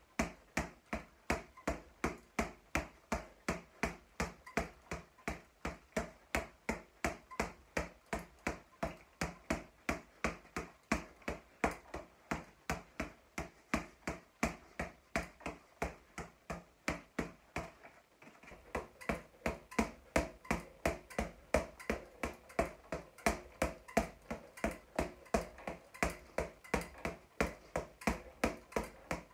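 Boxing gloves punching a floor-to-ceiling double-end ball in a steady rhythm of about three hits a second, each a sharp smack, with a brief break about eighteen seconds in. The ball's bungee cords are tightened slightly, so it rebounds faster.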